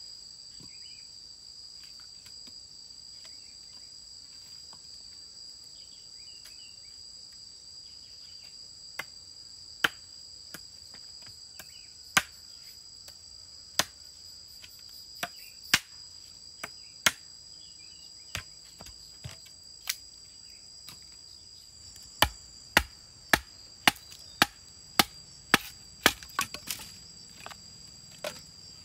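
Large knife chopping wood: scattered sharp blade strikes from about nine seconds in, then a quick run of strikes about two a second near the end. Steady high insect buzzing runs underneath.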